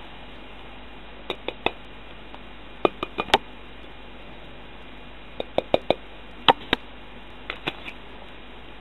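Sharp clicks and light knocks from something handled close to the microphone, coming in five small clusters of two to four, over a steady hiss.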